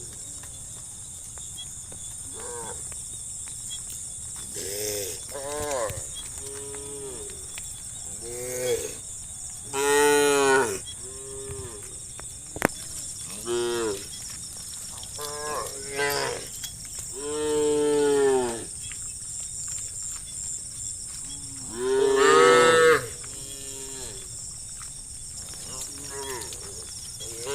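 A herd of cattle mooing: about a dozen separate moos from several cows, some short and some long and drawn out, the loudest about ten and twenty-two seconds in. A steady high hiss sits underneath, and a single sharp click comes about halfway through.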